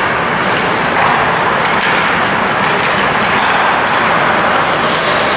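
Ice hockey game noise in an indoor rink: a steady wash of spectator and on-ice noise, with a few faint clacks.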